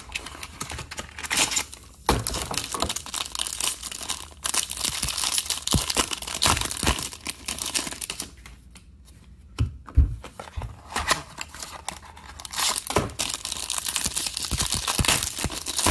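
Foil trading-card packs being handled and torn open by hand: crinkling foil and tearing wrappers, with a quieter stretch about halfway through.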